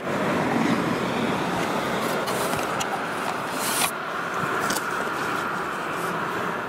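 Steady road traffic noise, with a JR Kyushu KiHa 47 diesel railcar approaching in the distance.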